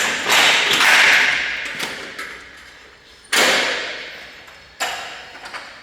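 Sharp metallic clanks from parts of a car exhaust being handled and struck in a workshop: a quick double hit at the start, then single hits about three and a half and five seconds in, each ringing out and echoing for about a second.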